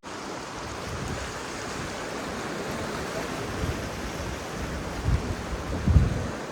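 Steady wash of ocean surf mixed with wind on the microphone, with two low thumps about five and six seconds in.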